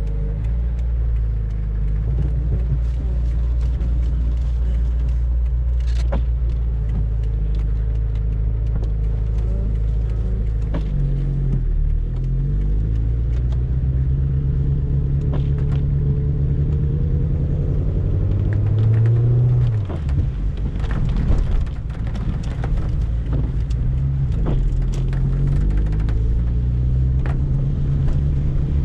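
A Peugeot 205 XS's carburetted 1.4-litre four-cylinder petrol engine running under way, heard from inside the cabin. Its note falls and picks up again with the revs, most clearly about twelve seconds in and again about twenty seconds in, with occasional sharp clicks over it.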